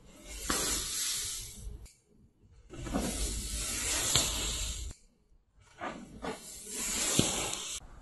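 Homemade green-fire pyrotechnic composition burning in cartridges: three separate hissing bursts of flame, each about two seconds long, with a few sharp crackles.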